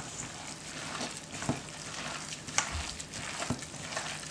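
Gloved hands kneading and squishing a wet ground chicken and shrimp filling in a stainless steel bowl: a steady wet squelching and crackling, with a few sharp clicks.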